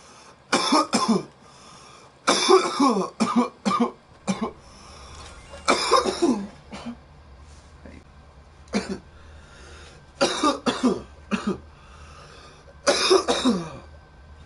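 A boy coughing repeatedly in short bouts, each of one to five harsh coughs, coming every couple of seconds.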